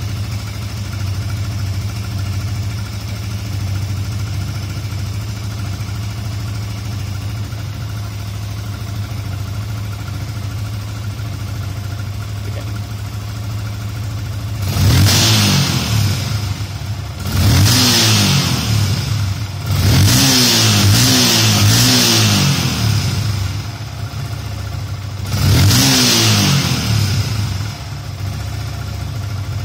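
Yamaha FZ150i's single-cylinder 150 cc engine idling steadily, then revved four times in the second half, each rise in pitch falling back to idle; the third is a run of several quick blips.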